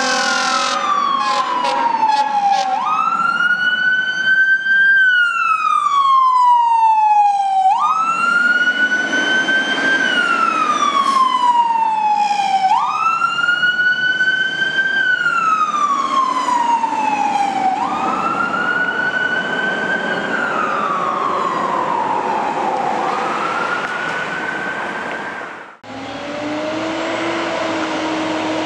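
A fire engine's electronic siren on wail, rising quickly and gliding slowly back down about every five seconds. A horn sounds a steady chord over the first couple of seconds. Near the end the siren cuts off abruptly and a steady, lower drone takes over.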